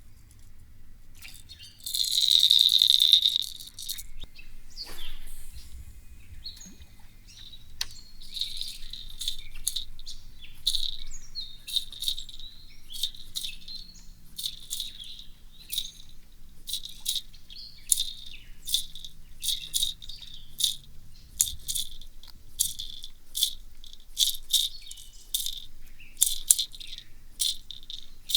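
Rattles inside a Lucky Craft Pointer 100 hard suspending jerkbait, heard underwater through a hydrophone. A loud burst of rattling comes about two seconds in as the lure is swept past the mic. From about eight seconds on there are dozens of short, sharp rattle bursts, one or a few at a time, as the lure is twitched.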